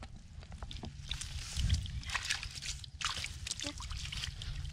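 Hands squelching and sloshing in a muddy, water-filled hole, with grass and twigs rustling and crackling against them. A steady low rumble runs underneath, with a louder sloshing patch about a second and a half in.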